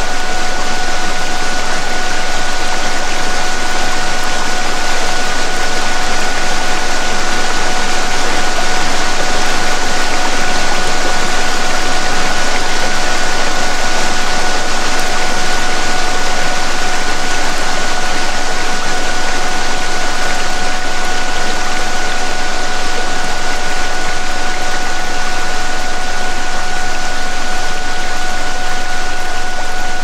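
Recorded waterfall: a steady, even rush of falling water. Two steady pure tones, one higher and one lower, are held unchanged over it as a 'DNA repair' healing frequency.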